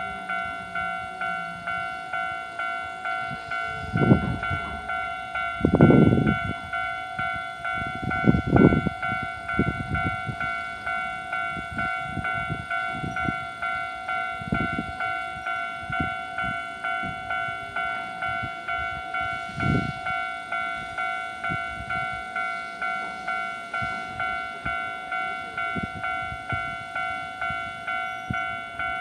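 Japanese level-crossing warning bell ringing over and over in an even rhythm, with a tram passing over the crossing: heavy wheel thuds over the rail joints about four to nine seconds in, then lighter knocks.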